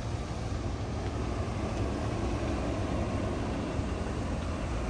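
Steady low rumble with a faint hiss over it, unchanging, with no distinct knocks, clicks or pitched engine note.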